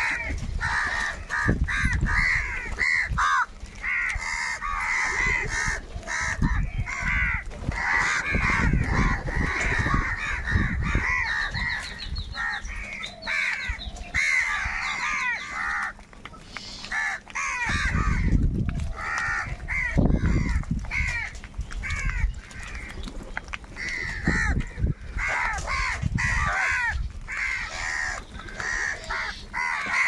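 A flock of house crows cawing constantly, many harsh calls overlapping as they squabble over food. A few low rumbles sit underneath, around a third and two thirds of the way through.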